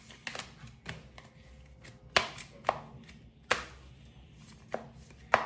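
Tarot cards being shuffled and drawn on a table: a series of sharp, irregular card taps and snaps.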